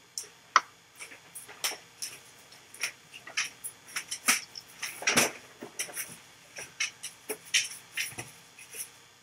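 A dog retching as it throws up: a string of short, irregular heaves and gulps.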